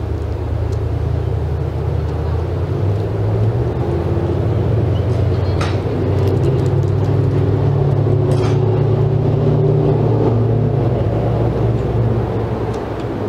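A motor running steadily with a low hum, swelling a little in the middle. Two brief high sounds cut in, about five and a half and eight and a half seconds in.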